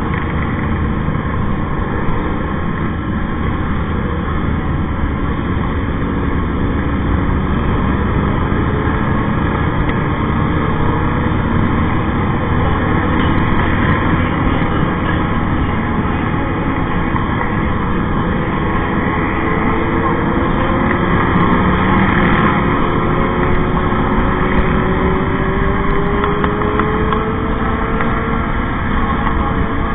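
Steady wind and engine noise from a motorcycle riding at speed in a group of motorcycles. Wind buffets the camera's microphone, and an engine's pitch rises slowly in the second half.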